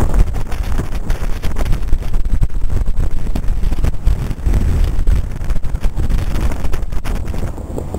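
Strong wind buffeting the microphone: a loud, gusty rumble that rises and falls unevenly.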